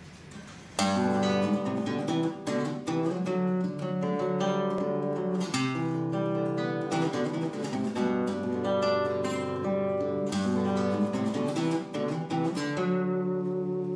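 Cutaway nylon-string classical guitar played solo as a song's instrumental introduction, chords fingerpicked and strummed. It starts about a second in, and a softer held chord rings near the end.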